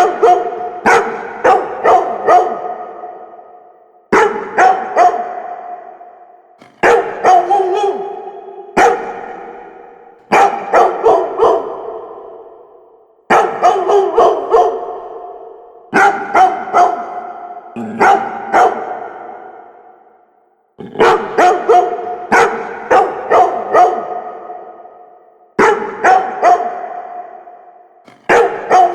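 Labrador barking in volleys of two to five quick barks, about every two to three seconds, each volley trailing off in a long fading tail.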